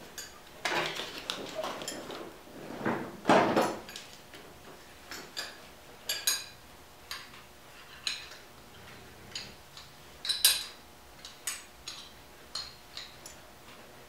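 Metal buckle hardware of a 5-point racing harness clinking and clicking as the belts are fastened, with rustling of webbing and clothing. Two longer bursts of rustling come in the first few seconds, then scattered sharp clicks, the sharpest about ten seconds in.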